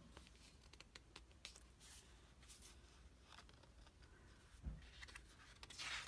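Near silence with faint rustles and small clicks of fingers handling the paper pages of a large art book. There is a soft low knock about two-thirds of the way in, and a louder paper rustle near the end as a page begins to turn.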